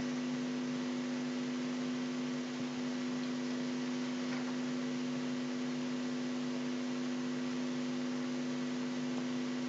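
Steady electrical hum of several constant tones over a light hiss, unchanging throughout: the recording's background noise.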